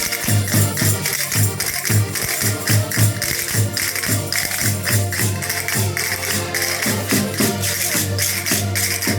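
Folk music played by a band, with a steady quick beat and jingling, shaken percussion.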